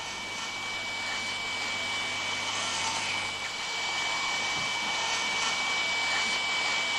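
High-speed surgical bone drill running steadily, a high-pitched whine over a hiss, as it drills through the temporal bone of the skull behind the ear.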